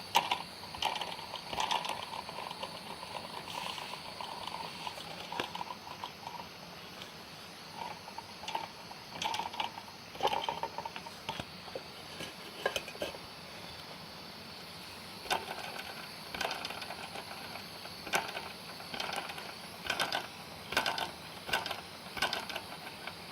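Small model Stirling engine's mechanism clicking and rattling irregularly, with short squeaky tones mixed in.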